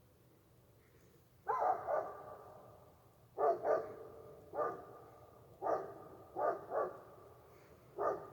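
Dogs barking in short repeated bouts, single barks and quick pairs, about nine barks over six seconds.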